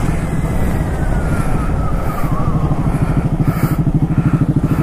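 Motorcycle engine running as the bike is ridden; about halfway through, its note settles into an even, rapid throb.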